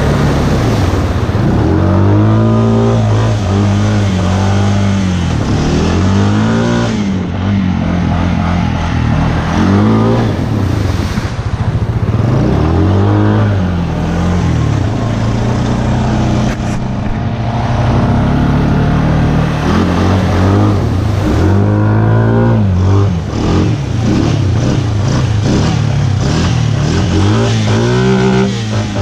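Honda ATV's single-cylinder engine running under load through mud and water, its pitch rising and falling again and again as the throttle is opened and let off.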